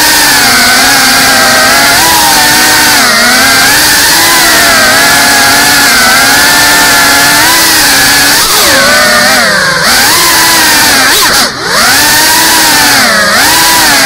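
Brushless motors and ducted propellers of a GEPRC CineLog 35 cinewhoop FPV drone whining, the pitch rising and falling continually as the throttle is worked. About eleven and a half seconds in, the sound briefly drops in pitch and level, then picks back up.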